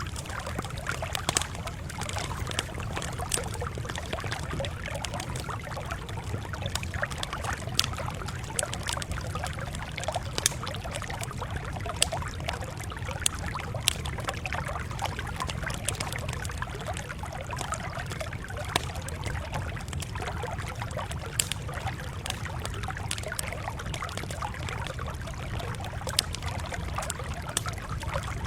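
Wood fire crackling steadily, with frequent irregular sharp pops over a low, even rumble.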